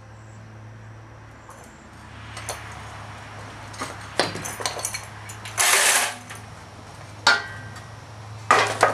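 Metal clanking and clinking: a steel intake manifold being positioned in a hydraulic shop press. Scattered single knocks, with a longer clatter about six seconds in.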